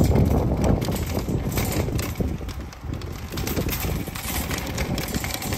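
Wire shopping cart being pushed over rough outdoor paving: its wheels rumble and the metal basket rattles with quick irregular clicks.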